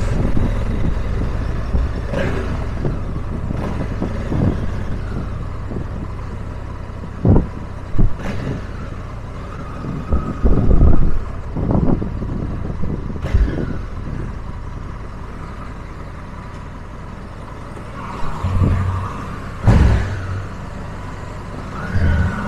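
Motorcycle engine, the riders' Honda Africa Twin, running steadily at low speed, with a handful of short knocks and bumps over it.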